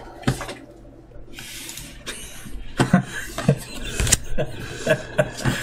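Trading cards being handled and sorted: a brief rustle a little over a second in, then a series of light taps and clicks of cards against each other and the table.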